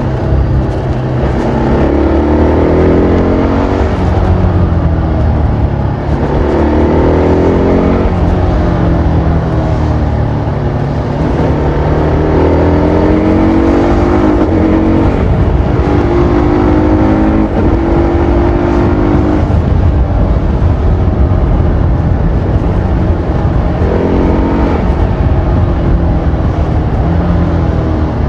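TVS Apache RR310's single-cylinder engine through its stock exhaust, accelerating through the gears: the note rises in pitch and drops back at each shift, about five times.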